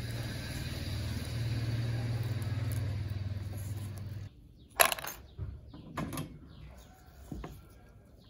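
A steady low mechanical hum that cuts off abruptly about four seconds in, followed by small metal parts being dropped into a plastic tub: two sharp clacks about a second apart, then a few lighter taps.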